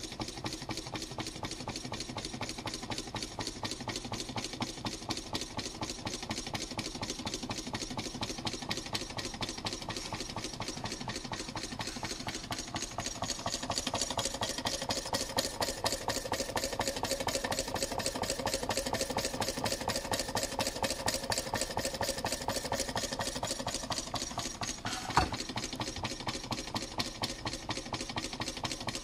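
Homemade Coke-can Stirling engine running, its crank and flywheel turning with a fast, steady mechanical clatter. The clatter is louder for a while in the middle, and there is a single sharp click near the end.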